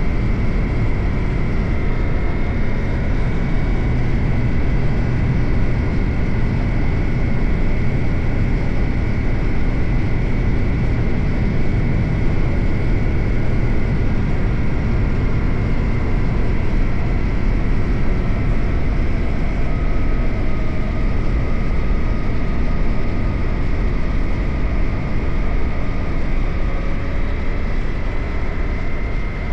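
Suzuki GSX-8R's 776 cc parallel-twin engine running steadily while under way, mixed with heavy wind and road rush.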